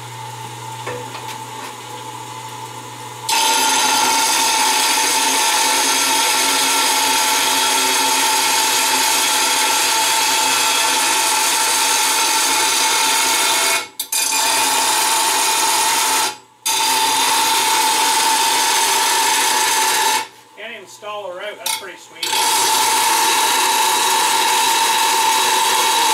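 Bench grinder running with a steady motor hum; about three seconds in, a steel plate is pressed against the grinding wheel, giving a loud, steady grinding with a high ringing tone. The grinding breaks off twice briefly and once for about two seconds near the end, as the plate is lifted off the wheel, then resumes.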